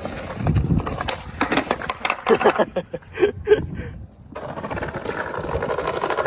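Skateboard wheels rolling on concrete, with the board clacking and knocking, and short shouts of voices in the middle. A steady rolling rumble of wheels sets in about four seconds in.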